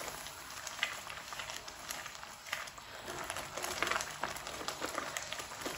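Thick tomato and tamarind chutney cooking in a nonstick pan while a silicone spatula stirs it: scattered small pops and scrapes.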